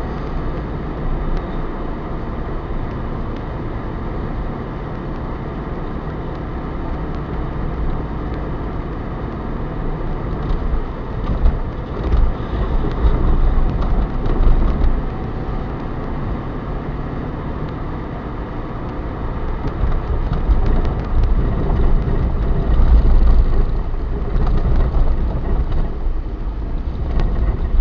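Engine and tyre noise of a car driving along a city street, heard from inside the cabin: a steady low rumble that swells louder twice.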